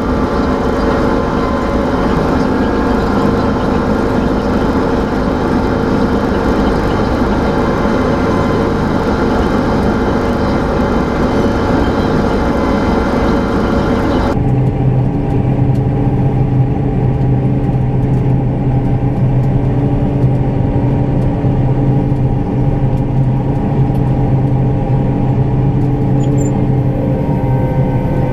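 Combine harvester running steadily while harvesting wheat, a continuous machine drone with a low hum. About halfway through, the sound changes suddenly: the high hiss falls away and the low hum becomes stronger.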